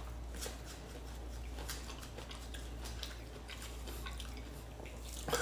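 Kitchen knife peeling the skin off a firm green mango: faint, scattered soft scrapes and clicks over a low steady hum, with one louder click at the very end.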